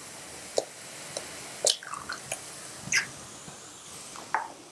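An egg being cracked by hand and dropped into a wok: a series of small sharp shell cracks and taps, over a faint steady hiss of minced garlic frying in oil.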